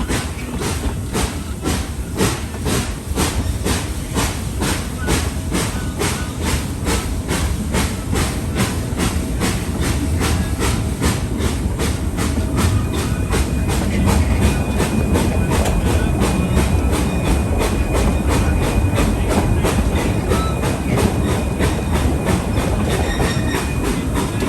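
Narrow-gauge steam train (Tweetsie No. 12, a 3 ft gauge 4-6-0) running, heard from a riding coach: a steady hissing beat about two to three times a second over a constant low rumble of wheels on rail. The sound grows a little louder around the middle, and a thin high steady tone joins about halfway.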